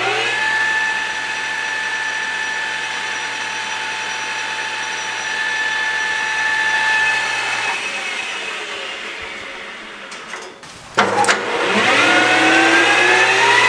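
Geared headstock and spindle of a YUWE L1440 lathe running unloaded with a steady whine, winding down about eight seconds in. It is restarted about eleven seconds in and speeds up with a rising whine toward its 2000 rpm top speed.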